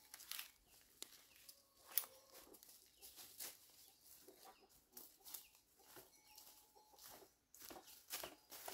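Quiet footsteps crunching on dry leaves and cut undergrowth on a forest path, coming closer and louder near the end, with a sharp snap about two seconds in. Faint bird calls in the background.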